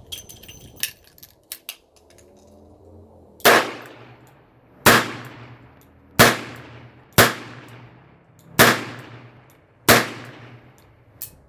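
A few metallic clicks as the Smith & Wesson Model 19 revolver's cylinder is loaded and closed, then six shots fired double action, about one every 1.3 seconds, each trailing off in a short echo. A single small click follows near the end.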